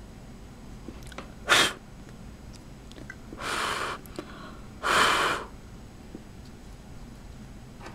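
Three breathy bursts of noise from a person directed at the card's electret microphone: a short, sharp one about one and a half seconds in, then two longer ones around three and a half and five seconds, the last the loudest.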